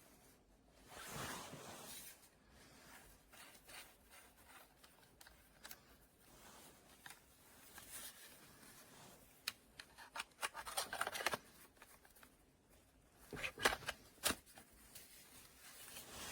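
Faint handling noises: a short rustle about a second in, then scattered clicks and scrapes, with quick clusters of sharp clicks about ten seconds in and again about thirteen to fourteen seconds in.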